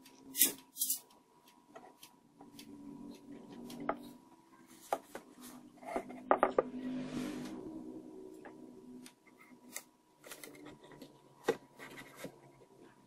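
Handling clicks and knocks: plastic bottle caps being set and pressed onto an MDF speaker box as feet. About halfway through comes a cluster of knocks, then a couple of seconds of rubbing as the box is turned over.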